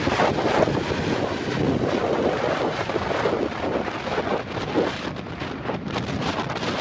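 Strong wind buffeting the microphone, mixed with the rumble of a Boeing 747's jet engines as the noise fades.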